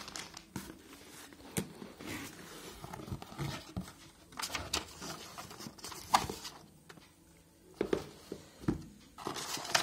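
A cardboard shipping box being handled and opened by hand: scattered short taps and knocks from the flaps, with brief scraping and paper rustling.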